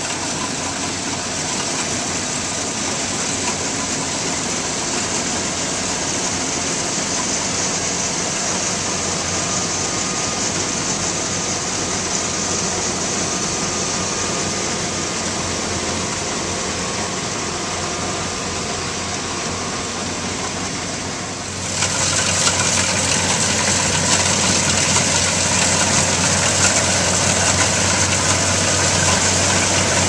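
Kubota DC-95GM rice combine harvester running steadily as it harvests: a constant engine hum under a dense mechanical rush. About two-thirds of the way through the sound suddenly becomes louder and brighter, as if heard from right beside the machine.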